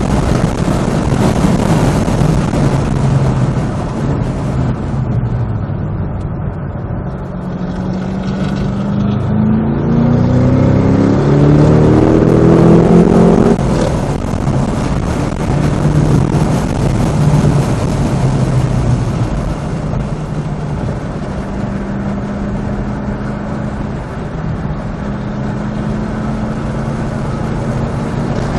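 Supercharged 6.2-litre V8 of a manual Cadillac CT5-V Blackwing under hard acceleration, with wind and tyre noise. After a quieter stretch early on, the engine note climbs steadily through a gear, drops sharply at an upshift about halfway through, then pulls again and rises slowly toward the end.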